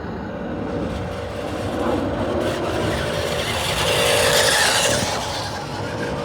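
Small electric motor and plastic gearbox of a remote-control toy construction machine whining steadily, with a scraping, rasping sound that builds and is loudest about four to five seconds in.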